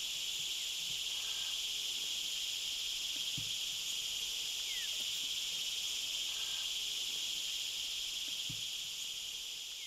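Steady, high-pitched chorus of insects, with a faint short falling chirp near the middle; it begins to fade near the end.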